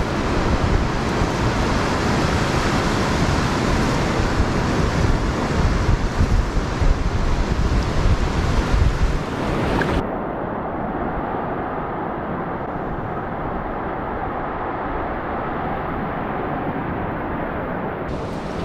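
Surf washing up the beach with wind buffeting the microphone, a steady rushing hiss with gusty low rumble. About halfway through the sound turns abruptly duller and a little quieter, the hiss gone, until near the end.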